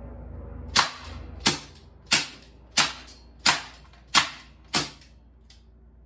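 Green gas BB revolver firing seven sharp pops in steady succession, about two-thirds of a second apart.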